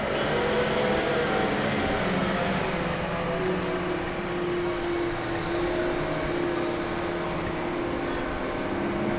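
Steady mechanical hum, with a held low tone coming in about three and a half seconds in.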